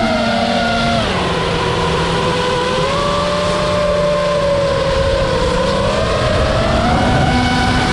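FPV racing quadcopter's brushless motors (Hypetrain 2306 2450kv) and props whining under changing throttle. The pitch drops about a second in, climbs around three seconds in, sags again and rises near the end.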